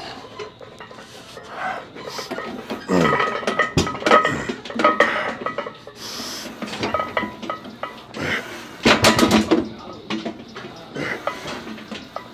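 Effortful grunts and breaths of a lifter pressing a loaded Smith machine bar through a set, with metallic clinks from the bar and weight plates.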